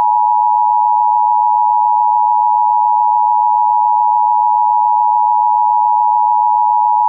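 Emergency Alert System attention signal: a loud, steady electronic tone held unbroken. It is the alert cue that announces the spoken emergency message to follow.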